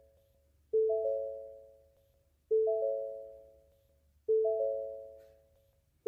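Ford car door chime: a three-note warning chime, a low note followed quickly by a higher and a middle note, each ringing and fading away. It repeats three times, about every two seconds, with another just starting at the very end.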